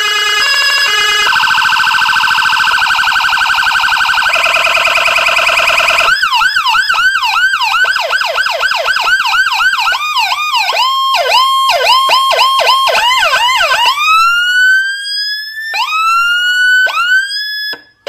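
Electronic siren module with a Whelen HHS3200 sound chip, played loud through a loudspeaker and stepping through its tones. A rapid high-low warble gives way about six seconds in to a fast yelp of about three up-and-down sweeps a second. About fourteen seconds in comes a slow rising wail, followed by short rising whoops near the end.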